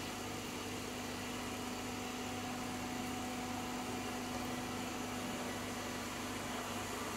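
Robot vacuum cleaner running, a steady hum and hiss with a held low tone.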